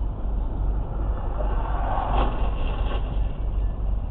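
Car driving on the road: a steady low rumble of engine and tyres, with a brief louder noise for about a second, roughly two seconds in.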